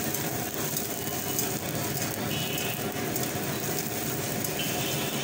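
A gas burner running under a karahi, with food sizzling in the pan and a few light clicks and scrapes from the metal tongs and spatula stirring it.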